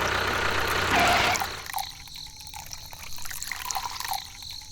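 A small motor runs briefly and stops about a second and a half in, then water trickles and drips.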